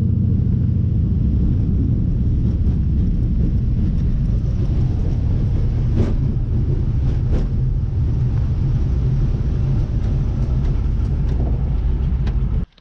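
Floatplane engine and propeller, a loud steady drone in flight that cuts off suddenly at the very end.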